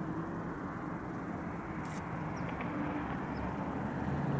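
Boeing 747 SuperTanker's jet engines, a steady rumble as the four-engined airliner climbs away from a low retardant drop.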